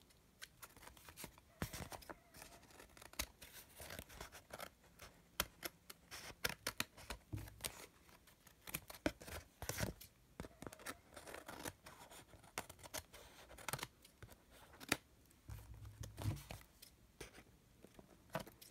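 Scissors snipping through paper in many short, irregular cuts, trimming the edge of a collaged book-page card.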